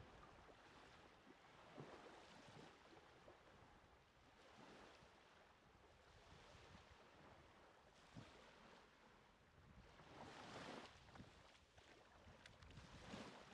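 Very faint small waves washing up a sandy shore, swelling softly about ten seconds in and again near the end.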